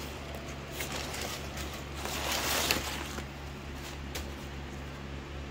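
Brown paper bag crinkling and rustling as an orchid is pulled out of it, loudest about two to three seconds in, over a steady low hum.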